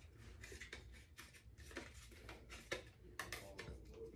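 Faint, scattered light clicks and scratches of a small cardboard perfume-sample box being handled and opened.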